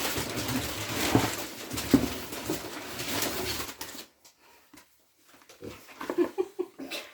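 Rustling and knocking of packaging and large plant leaves as a big potted peace lily is unpacked and handled, dense for about four seconds, then quieter with a few brief scattered sounds.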